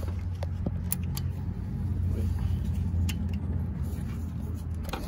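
A few light metallic clicks of an Allen key and hands working at an engine's belt tensioner, over a steady low hum.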